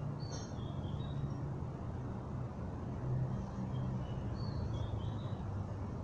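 Steady low rumble with several short, high chirps scattered through it.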